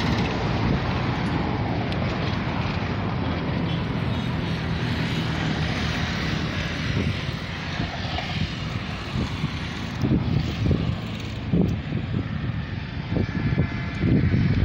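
Steady engine drone with a low hum, easing a little about halfway through. Short low thumps and knocks come through in the last few seconds.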